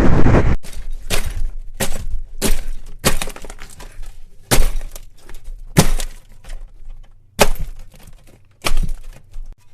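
A series of about a dozen sharp crashing impacts at irregular intervals, each with a short ring after it. They follow a loud rushing noise that cuts off about half a second in.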